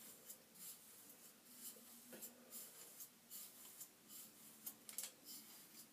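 Wide-tooth plastic comb drawn up through damp, moisturized natural hair: faint, repeated scratchy strokes, a few a second.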